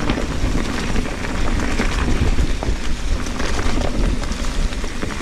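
Mountain bike riding fast down a rough dirt and rock trail: tyres crackling and ticking over stones and dirt with the bike rattling, over a steady rumble of wind buffeting the camera microphone.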